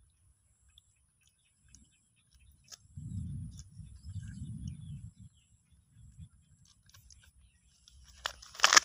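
Plastic tarp crackling and rustling in a short loud burst near the end as a baby macaque scrambles across it. Earlier there are a few seconds of low rumble and small scattered ticks.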